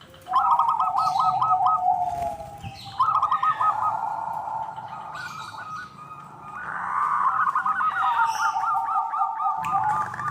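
Local zebra dove (perkutut) cooing in three bursts of quick, repeated notes. The longest phrase comes in the second half.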